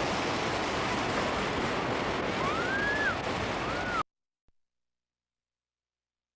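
Waves washing onto a beach with wind noise on the microphone, and two short high calls that rise and fall in pitch near the end; the sound cuts off abruptly to silence about four seconds in as the recording ends.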